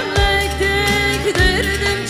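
A woman singing a Turkish folk song (türkü) into a microphone, holding long ornamented notes over a live band. A deep drum beat comes in near the start and again about a second and a half in.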